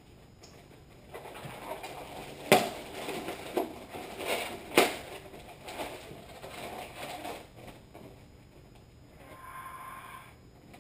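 Latex modelling balloons squeaking and rubbing against each other as they are twisted into a balloon animal, with sharp squeaks, the loudest about two and a half and five seconds in.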